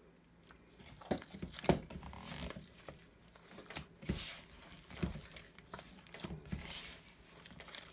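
Soft, wet bread dough being kneaded by hand in a plastic bowl: irregular squelching and slapping, with occasional knocks of the bowl.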